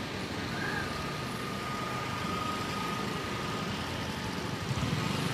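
Road traffic passing on a highway: steady engine and tyre noise of cars and scooters, with a nearer vehicle's low engine rumble growing louder near the end.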